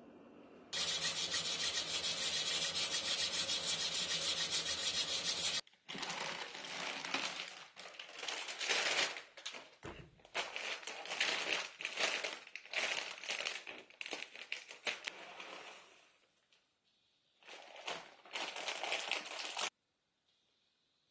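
Kitchen cooking-prep sounds. First a steady rushing noise for about five seconds, then irregular clattering and rustling as ingredients and utensils are handled, with a short pause before a last burst.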